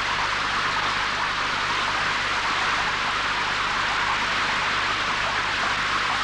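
Steady, even hiss of water falling and spraying down, like a heavy shower or downpour.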